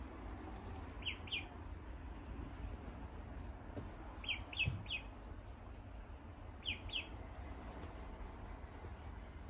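Ducklings peeping: short, high calls that fall in pitch, in little runs of two or three, about seven in all.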